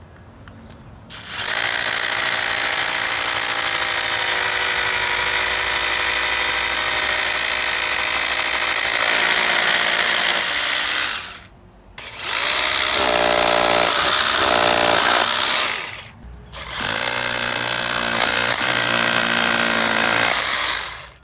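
12V cordless rotary hammer drilling into concrete, in three runs of about ten, four and four seconds, with short stops between them.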